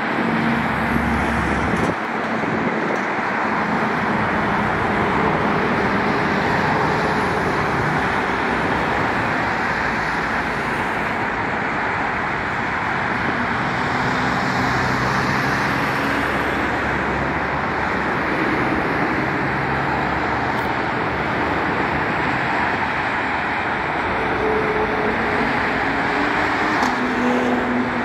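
Steady highway traffic noise: a continuous rush of cars and trucks on the road, with the low hum of their engines shifting now and then.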